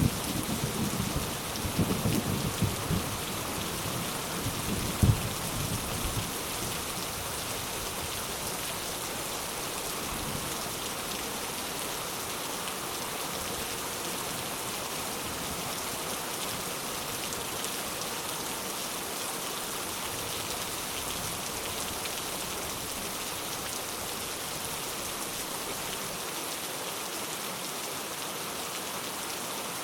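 Steady rain hiss, with thunder rumbling through the first few seconds, a sharp crack about five seconds in, and the rumble dying away soon after, leaving only the rain.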